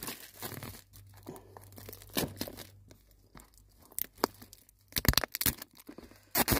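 Clear plastic shrink-wrap crinkling and tearing in the hands, with cardboard boxes being handled: a string of short sharp rustles, loudest about five seconds in.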